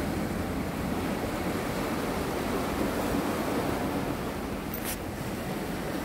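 Small sea waves washing onto a flat, layered rock shore: a steady, low wash of surf.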